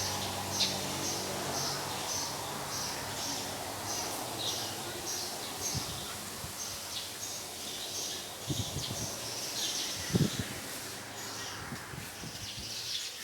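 A bird chirping repeatedly, short high calls about twice a second, over steady outdoor background noise. A low hum fades out in the first few seconds, and a few soft thumps come in the second half.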